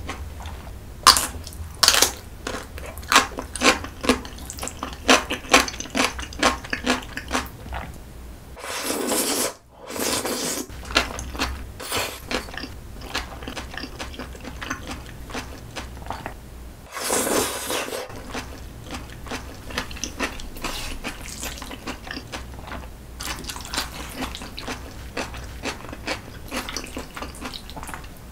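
Close-miked eating sounds: crisp, rapid crunching while chewing a slice of pickled yellow radish (danmuji), then two long wet slurps of jjajang noodles, one about nine seconds in and one about seventeen seconds in, with softer chewing between and after.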